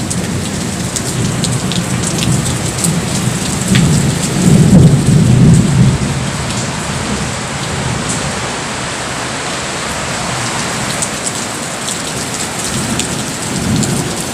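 Heavy rain mixed with hail pouring down: a steady hiss with scattered sharp ticks. A low rumble of thunder swells about four to six seconds in, the loudest part, and a smaller rumble comes near the end.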